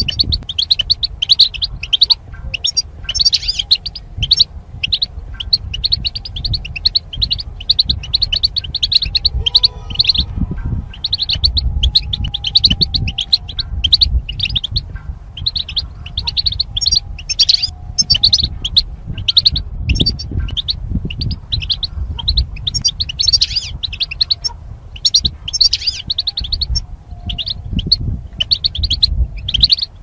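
European goldfinch singing: a fast, continuous twittering of short high notes, broken by a brief pause about ten seconds in, over a low background rumble.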